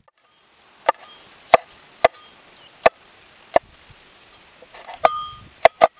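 Knife chopping on a cutting board: about eight sharp, irregular strokes, a couple of them near the end ringing briefly.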